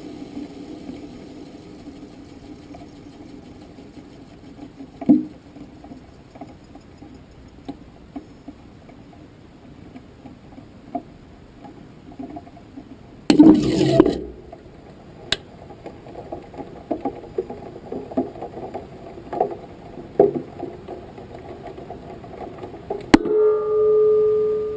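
Audio from the GoFast rocket's onboard camera in flight: a steady low hum with scattered knocks and rattles. A loud clattering burst about halfway through, then a sharp bang near the end followed by a held tone.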